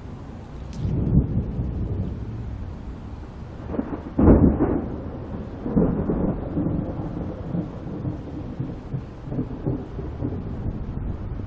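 Thunder rumbling from a tropical thunderstorm: the rumble builds about a second in, a sharper, loudest clap comes about four seconds in, and it keeps rolling unevenly afterwards.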